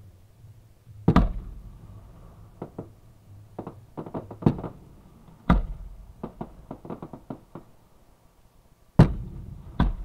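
Fireworks going off close by: four loud booms, about a second in, midway, and twice near the end, with a quick string of smaller sharp pops in between.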